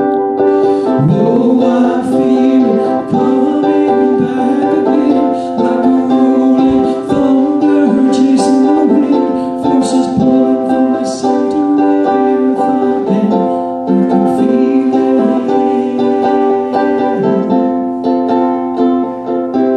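Ukulele played live, with a man singing along.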